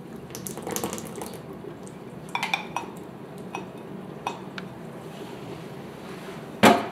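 Sour cream being scraped out of a glass with a silicone spatula into a steel mixing bowl: soft scraping, several light clinks of glass and spatula against the bowl, then one louder knock near the end.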